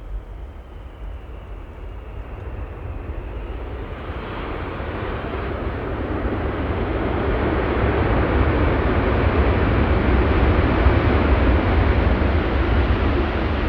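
Jet engine noise from a Boeing 747 freighter's four engines as it comes in to land, a steady rushing sound that grows louder as it nears. A faint high whine sinks slightly in pitch over the first few seconds.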